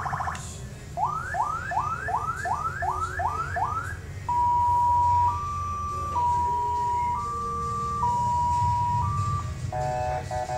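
CJB150 electronic siren module driving a 200 W chrome speaker, stepping through its tones. First comes a run of about eight quick rising whoops, then a two-tone hi-lo alternating about once a second, then a fast pulsed chirp near the end.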